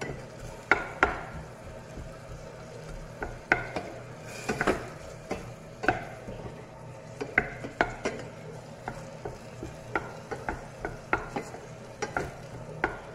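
Wooden spatula stirring diced tomatoes in a stainless steel saucepan, knocking and scraping against the pot in irregular strokes, over a light sizzle of the tomatoes sautéing.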